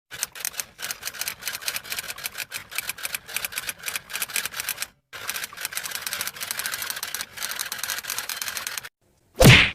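Rapid typewriter key clacking, a fast run of sharp clicks with a brief pause about halfway through, then one short, loud burst of sound near the end.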